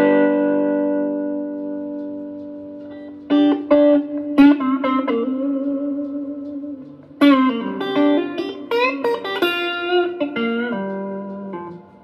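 Les Paul-style electric guitar on its neck pickup, played through an amp set to overdrive, with the guitar's volume turned down from full to clean the tone up. A chord rings and fades, then picked chords and single notes come in two runs, trailing off near the end.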